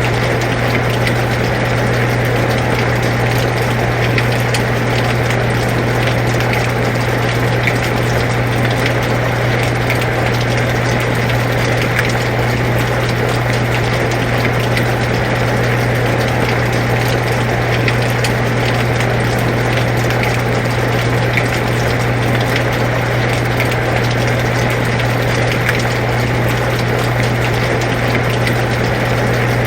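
Air conditioner running with a steady low hum, mixed with the even hiss of steady rain with fine scattered drop ticks.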